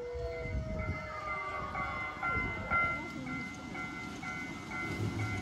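Level-crossing warning bell at a ride-on mini-train track, ringing a steady electronic ding-ding about twice a second from about three seconds in. The tail of a held horn-like tone fades out at the start.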